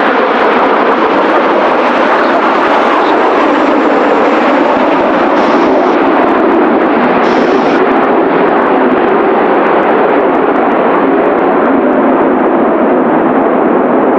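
Jet noise from Blue Impulse Kawasaki T-4 trainers flying the pattern: a loud, steady rushing roar with no rise or fall.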